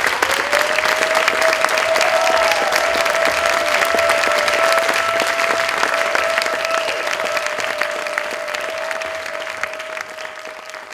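Theatre audience applauding, with one steady held tone sounding under the clapping. The applause fades out near the end.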